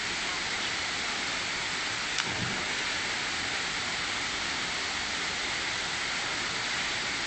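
Steady rushing of a small waterfall pouring into a rock pool, with a single brief thump about two seconds in.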